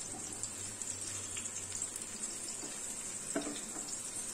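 Besan-coated okra frying in mustard oil in a wok, a low steady sizzle, with a few light scrapes and taps of a silicone spatula as it is stirred.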